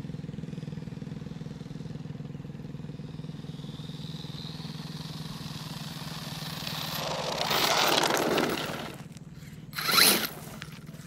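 Brushless-motor RC monster truck driving toward the microphone: a faint rising electric whine about three to four seconds in, then a swelling rush of motor whine and tyres on gravel that peaks about eight seconds in, and a short loud burst as it accelerates on the dirt near the end. A steady low engine drone runs underneath.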